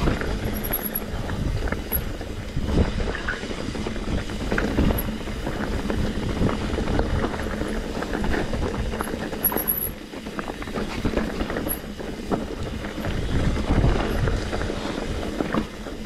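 Mountain bike rolling fast over rocky singletrack: a steady rumble of tyres on rock and gravel with frequent knocks and rattles from the bike.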